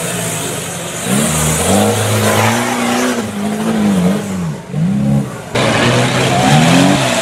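Competition off-road trial truck's engine revving hard under load, its pitch rising and falling about five times as the truck claws up a steep bank of loose dirt.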